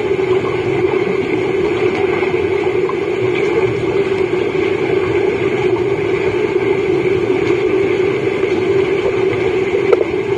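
Steady underwater noise of a swimming pool picked up by a submerged camera: a constant low hum under a wash of water noise from the swimmers, with a small knock about ten seconds in.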